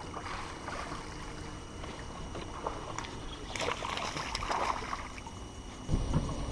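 Water splashing beside a boat as a hooked fish is fought on a bent rod, loudest about four seconds in. Near the end a low rumble starts abruptly.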